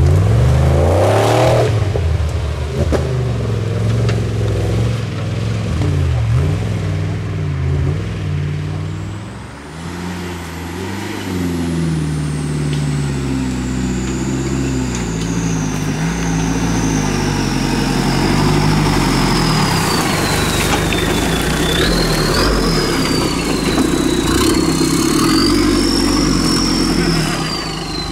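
Off-road competition 4x4s' engines revving and labouring as they climb rough trail sections, the engine note rising and falling with throttle. From about a third of the way in, a thin high whine sits over the engines, slowly drifting down in pitch.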